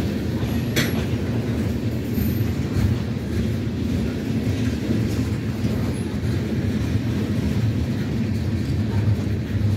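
Freight train of tank cars rolling past: a steady low rumble of steel wheels on the rails, with one brief sharp sound about a second in.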